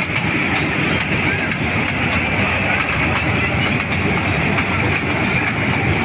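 Kiddie-ride toy train running on its rail track, a steady mechanical running noise with a constant whine and scattered light clicks.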